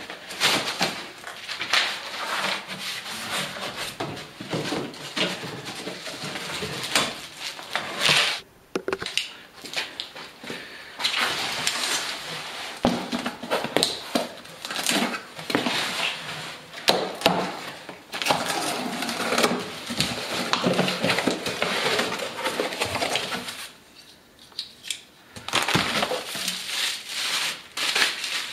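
Cardboard packing being handled: cardboard sliding, scraping and rustling with scattered knocks, and plastic wrap crinkling near the end. There is a short quieter spell near the end.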